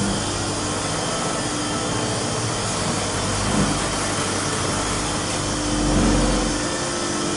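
Drive motor of a Pollock Lifts wheelchair platform lift running as the car travels down, a steady mechanical hum with a low rumble that swells briefly about six seconds in.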